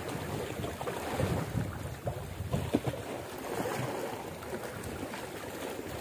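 Wind buffeting the microphone over sea waves washing against shore rocks, with a brief sharp knock a little under three seconds in.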